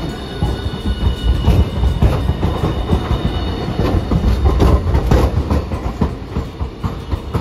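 Hiroshima Electric Railway Green Mover LEX low-floor articulated tram passing close by. A heavy rumble with wheels clicking over the rail joints, loudest in the middle as the cars go past.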